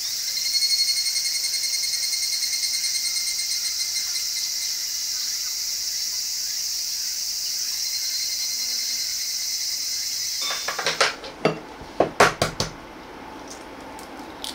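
Steady high chorus of summer insects, with one insect's pulsed chirping on top for the first few seconds. About ten seconds in it gives way to a run of sharp taps and clicks as a boiled egg's shell is cracked and peeled over a small plate.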